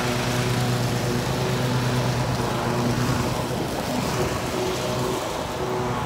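Toro zero-turn riding mower's engine running steadily at working speed as it mulches leaves, easing off a little in the middle.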